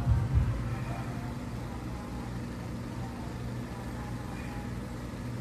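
Steady low mechanical hum, like a motor running continuously in the background, with no distinct knocks or clanks.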